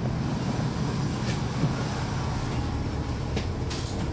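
Cummins ISL9 inline-six diesel of a NABI 40-SFW transit bus, heard from inside the bus, running steadily with a low rumble. A few short rattles or clicks come through, about a second in and again near the end.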